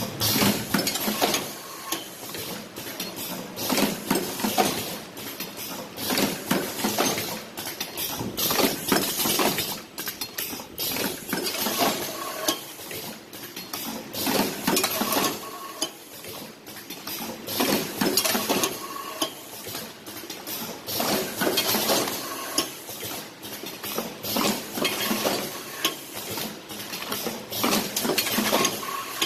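Automatic blister-board cartoning machine running: a dense, irregular clatter of metal clicks and knocks from its moving parts as it folds and fills cartons.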